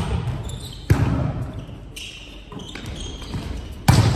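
Sharp slaps of a volleyball being struck in play, echoing around a large gym hall: one right at the start, another about a second in, and a louder one near the end.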